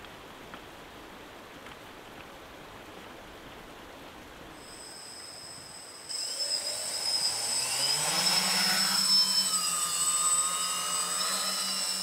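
A steady background hiss, then about six seconds in the electric motors of a camera-carrying multirotor drone start up. Their whine rises in pitch over a couple of seconds and then holds as a steady, loud, high-pitched buzz while the drone lifts off.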